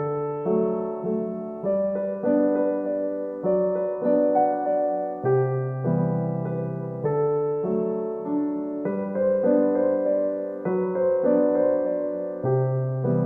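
Background music: a gentle piano melody over sustained chords, with notes struck and decaying in a steady rhythm.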